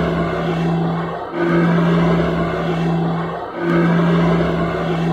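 Small twin-engine propeller plane's engines running with a steady low drone and a noisy rush over it. The drone dips and swells back about every two seconds.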